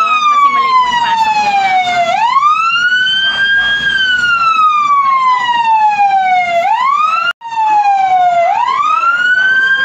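Fire truck siren on a slow wail, each cycle rising quickly and then falling slowly, about every four and a half seconds. It cuts out for an instant about seven seconds in.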